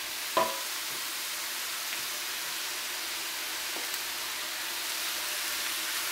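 Vegetables sizzling steadily in a frying pan as rice is spooned on top, with one sharp ringing clink of the spoon about half a second in.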